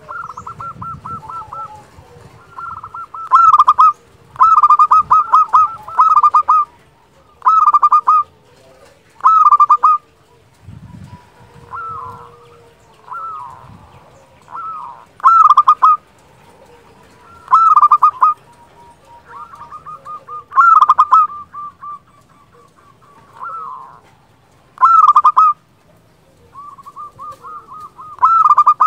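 Zebra dove (perkutut) singing its flute-like cooing song: phrases of quick rattling notes, repeated every second or two, some loud and some soft.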